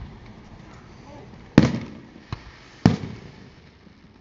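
Aerial fireworks going off: two loud bangs about a second and a quarter apart, with a lighter pop between them, each bang trailing off into a long echo.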